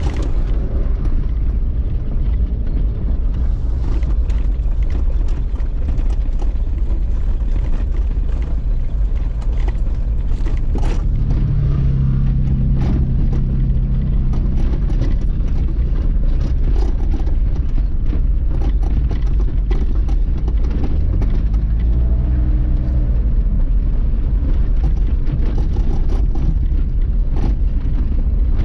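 Car driving slowly, heard from inside the cabin: a steady low engine and tyre rumble with scattered light knocks and rattles. An engine hum swells and changes pitch twice, about 12 seconds in and again about 21 seconds in.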